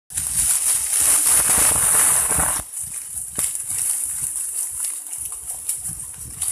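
Rustling-bushes sound effect: a loud, hissy rustle for about two and a half seconds, then softer rustling, cutting off abruptly.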